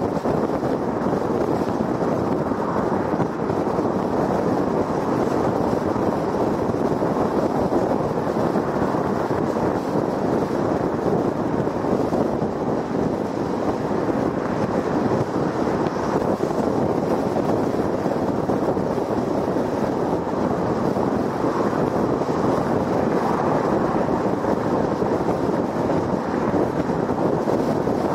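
Steady road noise of a car cruising at highway speed on a concrete freeway: tyre noise and wind rush, even throughout.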